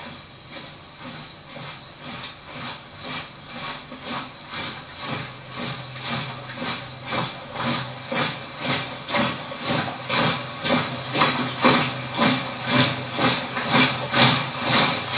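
Crickets chirping steadily. From about a third of the way in, a rhythmic pulse of about three strokes a second, over a low hum, fades in and grows louder.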